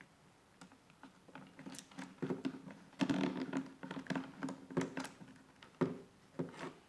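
Saw chain being handled and fitted onto a chainsaw bar: irregular clicks and light metallic rattles, busiest in the middle, with the first few seconds nearly quiet.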